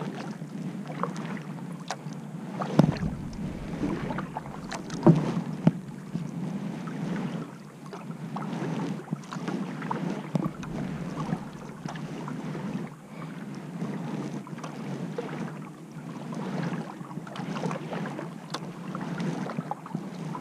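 Double-bladed kayak paddle dipping and splashing in calm water, stroke after stroke in a loose rhythm, with small drips and clicks. A few sharp knocks stand out, the loudest about three seconds and five to six seconds in.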